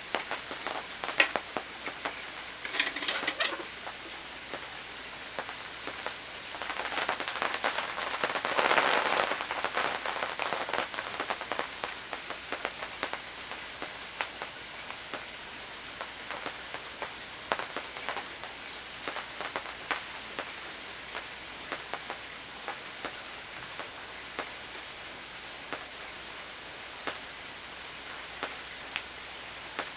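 Rain pattering on a tent canopy: a steady hiss dotted with sharp individual drop ticks. It grows louder and denser for a few seconds about seven to eleven seconds in, then settles back.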